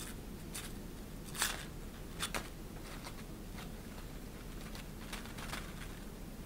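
Shiny, crinkly plaid fabric rustling in short scattered swishes as a pink ribbon cat teaser is drawn through its folds. The loudest swish comes about one and a half seconds in, with a quick pair just after two seconds.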